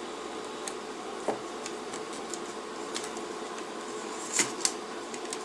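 Small plastic clicks and taps from the Mercedes W209 CLK instrument cluster being worked apart by hand as its face is pulled forward to free the LCD display. Sharper clicks come about a second in and twice just past four seconds, over a steady faint hum.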